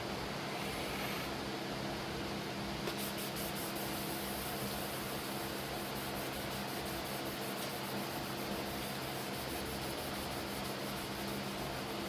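Steady hiss over a low, even mechanical hum, with a faint fast ticking joining about three seconds in.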